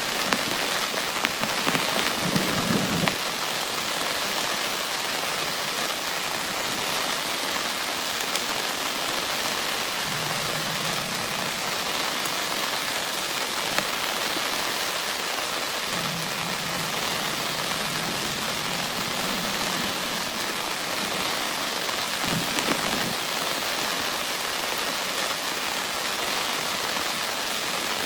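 Heavy rain falling steadily, a constant hiss of drops, with a few faint low rumbles coming and going.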